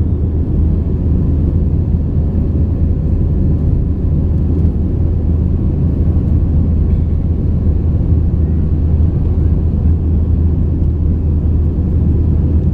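Cabin noise inside an Airbus A320-family airliner climbing after takeoff: a steady, loud, low rumble of the jet engines and rushing air.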